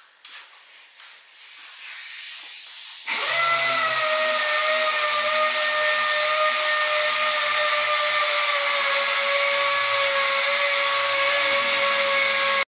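Air-powered DA (dual-action) sander with a soft backing pad and 400-grit paper, sanding filler primer on a van's steel side panel. It starts suddenly about three seconds in and runs as a steady whine over a hiss, the whine sinking slightly in pitch.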